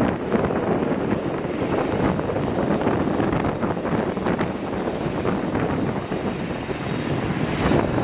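Airbus A300-600F freighter on final approach, its twin turbofan engines making a steady noise, heavily mixed with wind buffeting the microphone.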